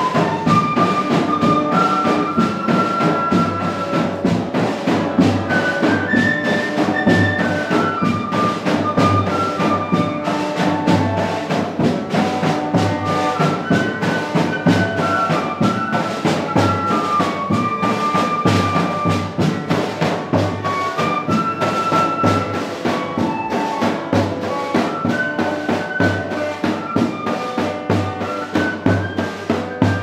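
Brass band music: horns playing a melody over drums keeping a steady beat.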